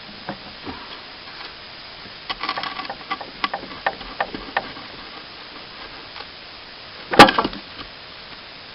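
Scattered light metal clicks and knocks, then one loud clank about seven seconds in, as the broken blade-ram mount of a mini-excavator is worked loose.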